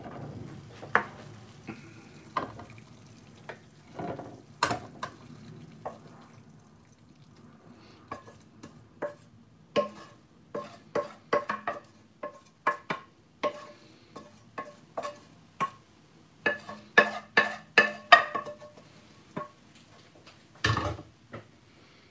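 Metal spoon clinking and scraping against metal cookware as curry is spooned out of the pan into a stainless steel serving dish: many short ringing clinks, a few at first, then steady ones and a quick run near the end.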